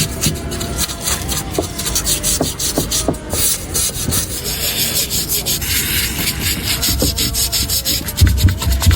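Rapid rubbing and scraping from hand work on a part, many quick strokes in a row, with a few heavier low thuds near the end.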